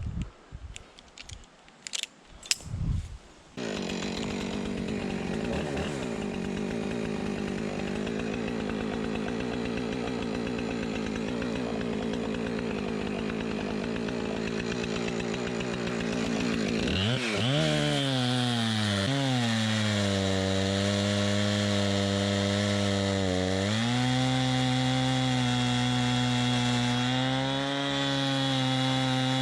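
Chainsaw starts a few seconds in and runs steadily. About 17 seconds in it is opened up to full throttle, and its pitch dips and recovers several times as it cuts into the tree.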